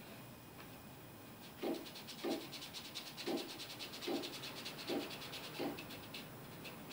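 A sheet of paper being slid back and forth on the wooden work surface beneath the CNC router bit, about seven quick rubbing strokes roughly two-thirds of a second apart.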